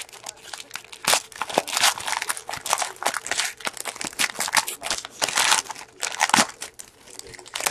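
Wrapper of a 2013 Momentum football card pack being torn open and crinkled in the hands: a dense run of crackles and rustles.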